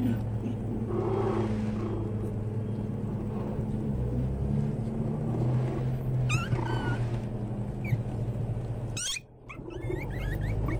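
American Eskimo puppies whining and squeaking in high, sliding squeals, a few at a time, clearest about two-thirds of the way through, over a steady low hum.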